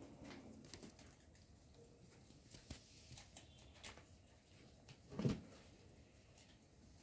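Faint scattered clicks and rustles of baby rabbits moving and nibbling among fresh leaves in a cardboard box, with one louder low thump about five seconds in.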